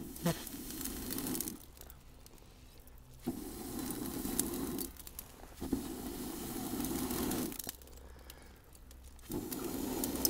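A person blowing hard into an offset smoker's firebox to get freshly added lump charcoal burning: four long blows of one to two seconds each, with short pauses for breath. The coals crackle and pop between the blows.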